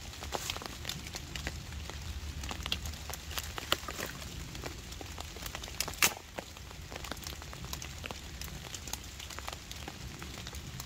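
Steady rain dripping and pattering on a canvas tarp and wet leaf litter, mixed with the crackle of a small, smoky fire of wet sticks; irregular light ticks throughout, with one sharper pop about six seconds in.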